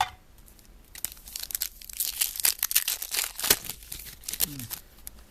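A trading-card pack wrapper being torn open and crinkled, a burst of crackling from about a second in until near the end.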